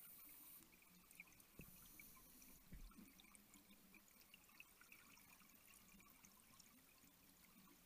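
Very faint underwater noise: light crackling throughout, a brief high hiss at the start and another from about one and a half seconds in, and two low thumps about a second apart.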